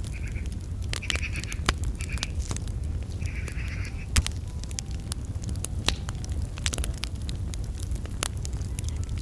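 Outdoor background: a steady low rumble with scattered crackling clicks throughout, and a few short calls in the first four seconds.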